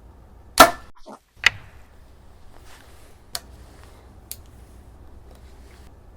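A bow shot: the string releases with a sharp crack, and a little under a second later the arrow strikes the target downrange with a fainter smack.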